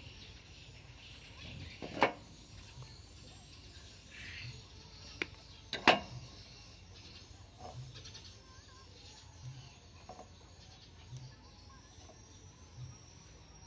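Sharp clicks and light knocks of small metal parts being handled as wire ends with ring terminals are worked into the screw terminals of a DC-DC step-up converter module. Two loud clicks come about two and six seconds in, with a few fainter ticks later.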